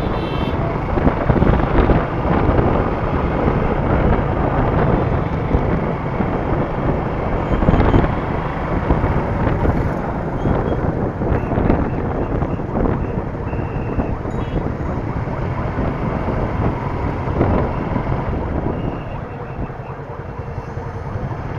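Suzuki Gixxer SF motorcycle's single-cylinder engine running at low town speed, mixed with wind rush on the camera's microphone and road noise. It goes quieter near the end as the bike slows.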